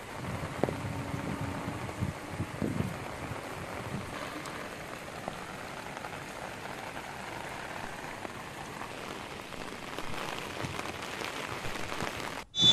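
Steady rain falling and splashing on surfaces, an even hiss.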